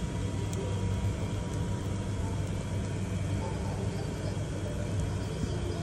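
Steady low rumble with an even hiss from a commercial takoyaki griddle as the balls cook in the pan.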